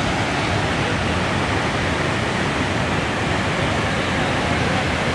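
Flooded river waterfall: a great volume of muddy water pouring over a rock ledge, making a steady, loud rush.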